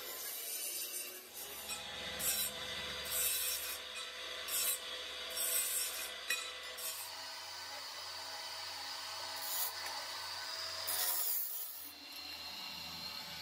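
Abrasive cut-off saw (chop saw) cutting steel tubing. A steady motor whine runs underneath, and a harsh grinding hiss comes in repeated bursts each time the disc bites into the metal.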